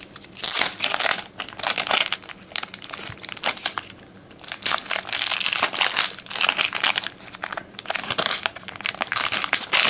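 Plastic crinkling and rustling in quick irregular handling noises as baseball trading cards in their plastic wrapping are handled, with a brief quieter lull around three to four seconds in.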